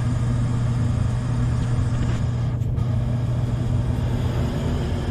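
Furnace blower motor running with a steady hum, turning slower than it should after it needed a spin by hand to start: a sign of a failing start capacitor or a worn-out motor.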